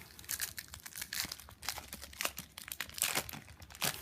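Foil trading-card pack wrapper crinkling as packs and cards are handled, in a run of irregular crackles.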